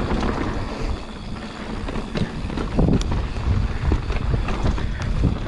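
Mountain bike riding fast down a dirt trail: wind rushing over the microphone and a low rumble from the tyres, with scattered short knocks and rattles from the bike over bumps.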